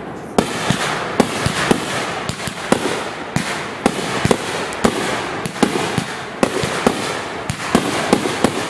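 Consumer fireworks display: a rapid, irregular run of sharp bangs from bursting shells, two or three a second, over a continuous crackling hiss.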